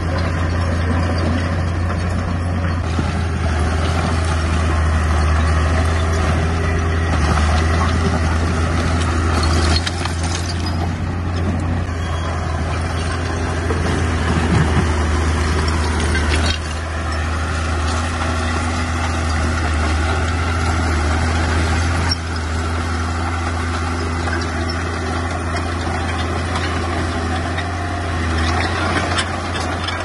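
Heavy diesel engine of earthmoving machinery running steadily under work, a deep drone with clatter and grinding noise above it. The sound changes abruptly about ten, sixteen and twenty-two seconds in.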